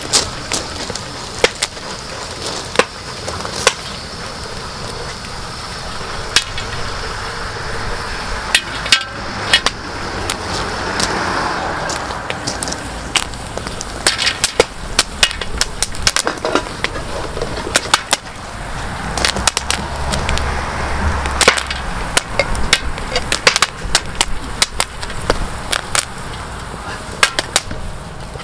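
Popcorn kernels popping in a cast-iron pot-lid pan over a wood fire, under a wire-mesh strainer cover: sharp, irregular pops over a steady hiss, coming more often toward the end.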